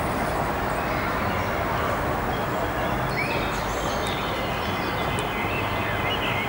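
Steady outdoor city background noise with a low rumble, and a few faint short chirps about halfway through and again near the end.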